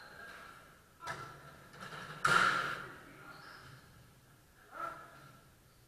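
A few sharp knocks during a sabre fencing lesson. The loudest comes about two seconds in and rings briefly, and a smaller one follows near the end.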